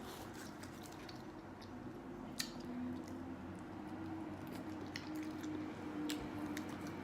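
Close-up chewing of food, with wet, squishy mouth sounds and a few sharp clicks of the lips and teeth.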